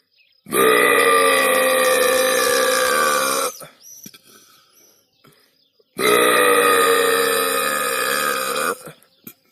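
Two long, loud burps, each about three seconds, held at a steady pitch that sags slightly toward the end, with a pause of about two seconds between them.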